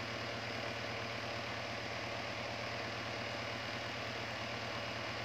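Small plastic desk fan running steadily: an even rush of air from the blades over a constant low motor hum.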